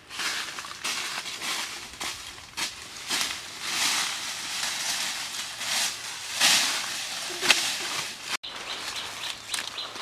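Dry fallen leaves rustling and crunching in irregular bursts, as feet tread through the leaf litter. A sudden brief break about eight seconds in.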